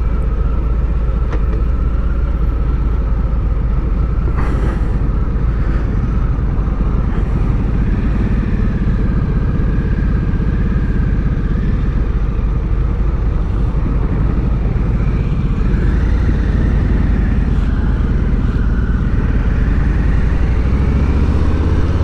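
Harley-Davidson Street Bob 114's Milwaukee-Eight 114 V-twin running under way at a steady cruise, heard from the saddle with wind rushing past; near the end the engine picks up revs.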